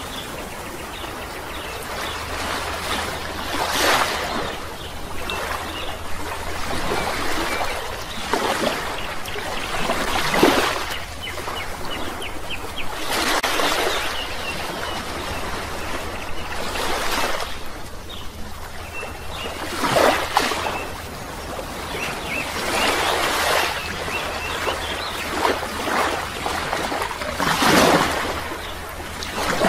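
Water surging and bubbling, swelling up every few seconds, with faint high chirps now and then.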